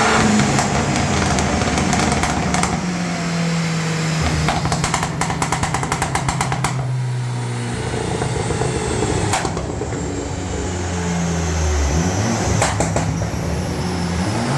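Fiat Abarth 595's 1.4 T-Jet turbocharged four-cylinder engine revving up and down on a rolling-road dyno. Between revs it gives runs of rapid exhaust crackles and pops, two long runs in the first half and a few single pops later.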